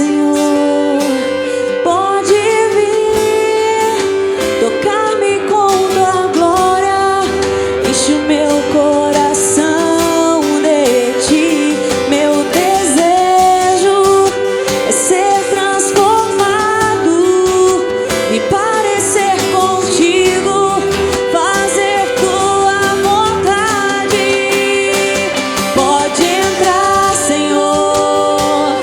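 Live band playing a slow worship song: acoustic and electric guitars with percussion, and a wavering melodic line that sounds like singing, continuing steadily.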